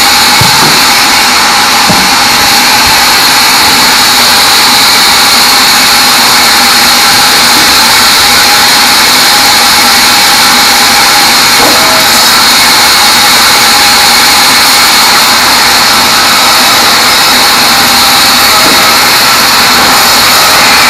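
Band sawmill cutting a teak log, running steady and loud with a high, even whine.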